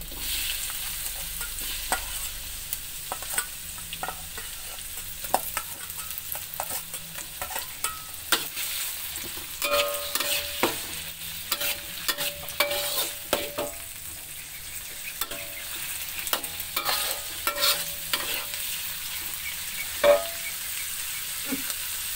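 Raw shrimp sizzling in hot oil in a wok with shallots, garlic and chilli, the sizzle coming up as they go in at the start. A spatula scrapes and knocks against the metal wok throughout, some knocks ringing briefly, the loudest near the end.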